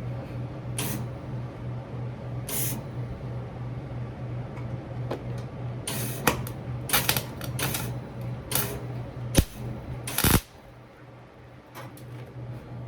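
Scattered sharp clicks and knocks, as of hand tools and parts handled against metal, over a steady low hum. The knocks come thicker and louder in the latter part, and the hum drops away just after the last heavy knock.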